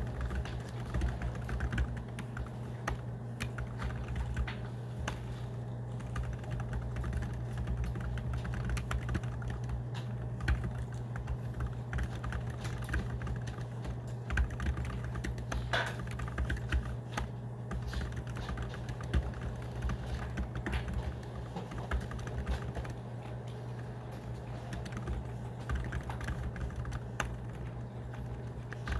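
Fast, continuous typing on a scissor-switch (pantograph) laptop-style keyboard: a dense run of light key clicks, with a steady low hum underneath.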